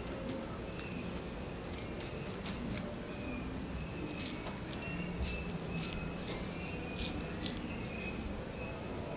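Crickets trilling steadily at a high pitch, with a few faint clicks scattered through.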